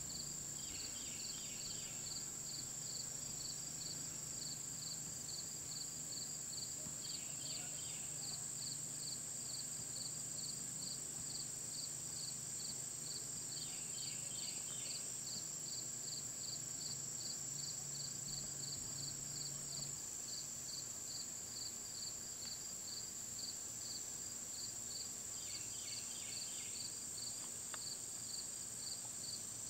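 Insect chorus in the woods: a steady high-pitched buzz, a cricket chirping evenly about twice a second, and a short burst of lower chirps every several seconds.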